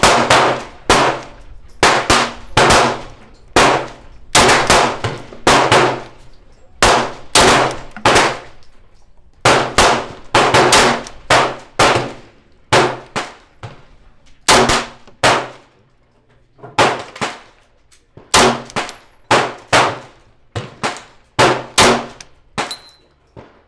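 Gunfire from several shooters: dozens of loud, sharp shots in irregular succession, about one to two a second and sparser near the middle, each with a short echo. Among them is a 9 mm Glock pistol being fired by hand.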